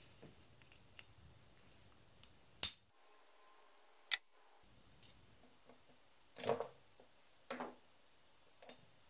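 Faint, scattered clicks and knocks of a screwdriver and chainsaw cylinders being handled and set down on a wooden workbench, five or so in all, the sharpest about two and a half seconds in.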